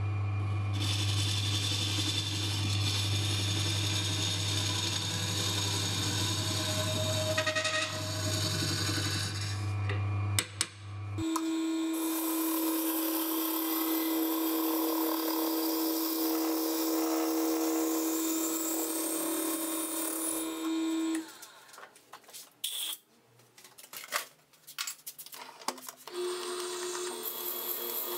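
Wood lathe running while a turning tool cuts into the spinning end grain of the blank, hollowing its core: a steady hum with the hiss of cutting. About eleven seconds in the sound changes abruptly to a higher steady whine with cutting noise. A little after twenty seconds it breaks into a few seconds of scattered knocks, and the steady running sound returns near the end.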